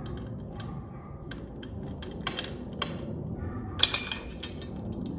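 Hex key tightening the bolts of a hydraulic disc-brake caliper on a bicycle: scattered small metallic clicks and ticks of the tool working the bolt, with one sharper click just before four seconds in.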